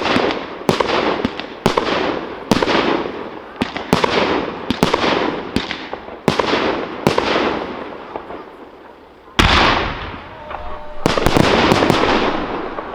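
Fireworks display: a steady series of bursts, about one bang a second, each trailing off in a fading crackle. Near the end the shots thin out, then one very loud bang and a quick cluster of bursts with a longer tail.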